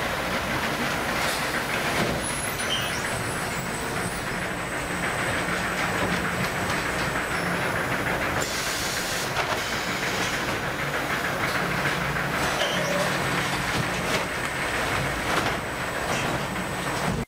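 Automated sack-stacking machinery running: a steady mechanical rattle and hum with hiss and a few scattered clicks.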